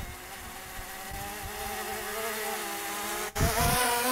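DJI Mavic Mini drone's propellers buzzing as it is flown back by hand, the pitch wavering as the motors struggle against strong wind. It cuts out briefly just over three seconds in and comes back louder.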